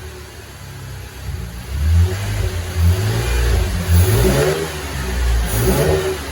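A 2015 Chevrolet Camaro RS's V6 with a K&N cold air intake, idling at first and then revved repeatedly from about two seconds in, each throttle blip rising and falling back.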